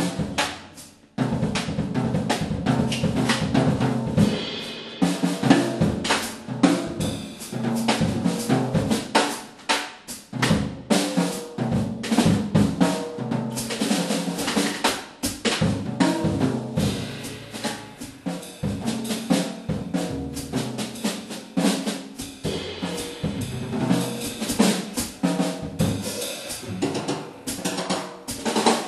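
Jazz drum kit played in a solo: busy snare drum strokes and rolls with bass drum hits. There is a brief break about a second in before the playing picks up again.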